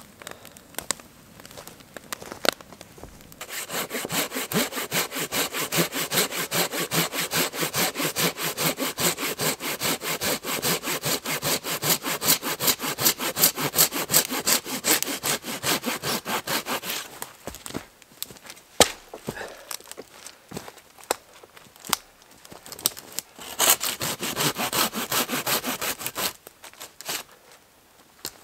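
Hand pruning saw with a curved blade cutting through a dead standing tree trunk in quick, steady back-and-forth strokes. It starts a few seconds in and runs for about thirteen seconds, stops for a few seconds with only scattered clicks and knocks, then saws briefly again near the end.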